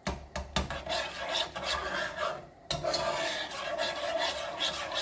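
A metal slotted spoon stirring a thickening roux-based soup in a cooking pot, scraping and rasping over the bottom of the pot, with a few light clicks at the start and a short pause about two and a half seconds in.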